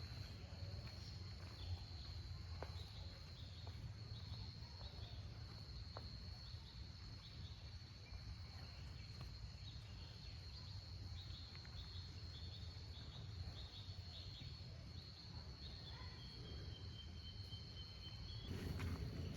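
Insects shrilling in one steady high-pitched tone, with short high chirps repeating about once a second and a low rumble underneath. A louder broad noise comes in near the end.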